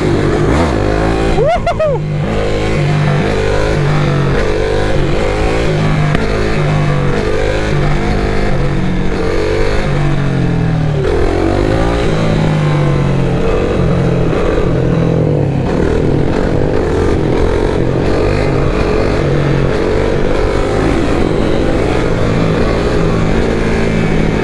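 Motorcycle engine idling at a standstill, blipped on the throttle again and again so that its pitch rises and falls, then running steadier for the last ten seconds or so.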